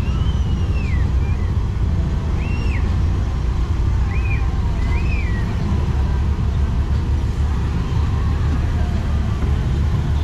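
The tourist boat's engine running at a steady low rumble, with four short high whistling calls that rise and fall, in the first half.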